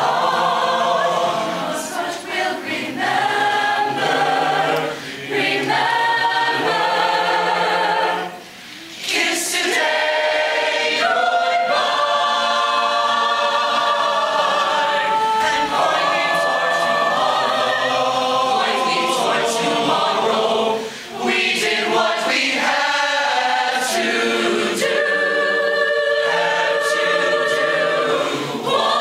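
Mixed high school choir singing a ballad in held chords, with brief breaks between phrases, the longest about eight and a half seconds in.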